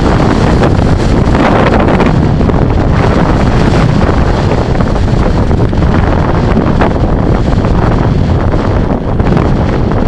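Strong gusting wind buffeting the microphone: loud, continuous wind noise.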